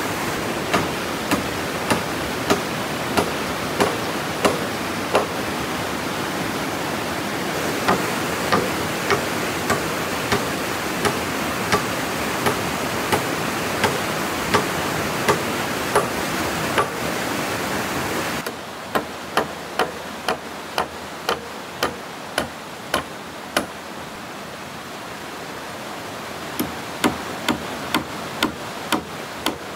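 Repeated strikes of a hand tool on wood, evenly spaced at about one and a half a second, over a steady rushing background noise. The rushing noise drops suddenly about two-thirds of the way through while the strikes carry on.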